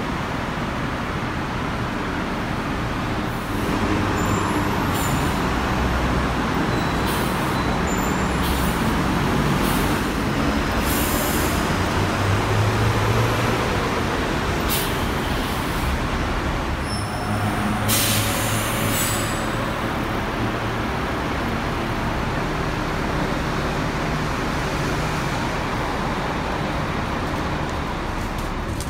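Diesel city bus engine running while it pulls up and stands at the stop, over steady traffic noise. Several short hisses of compressed air come from the bus's air brakes, the longest about two-thirds of the way through.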